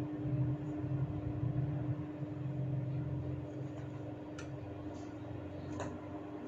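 Two small, sharp snaps about a second and a half apart in the second half, typical of hair cracking: bunches of hair tugged at the scalp until they pop. Under them runs a steady low hum.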